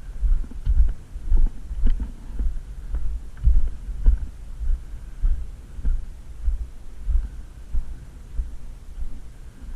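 Dull, low footstep thumps, about one every half second to second, picked up by a helmet-mounted action camera's microphone, with a few faint clicks.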